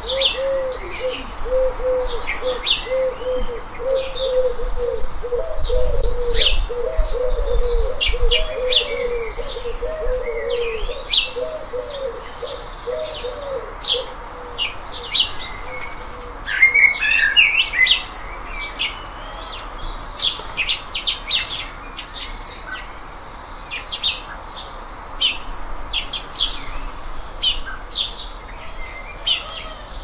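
Wild birds chirping and calling, with many short high-pitched calls scattered throughout. Through the first half a low call repeats rapidly and evenly, then stops about halfway through, over a steady hiss of background noise.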